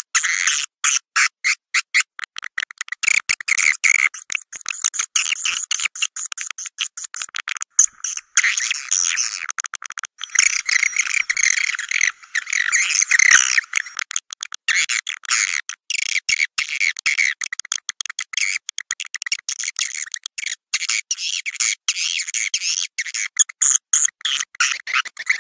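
Swiftlet calls: dense, rapid high chittering and twittering in quick pulses, with longer unbroken chattering runs about halfway through. This is a recorded swiftlet lure call, the sound played at swiftlet houses to draw the birds in to roost.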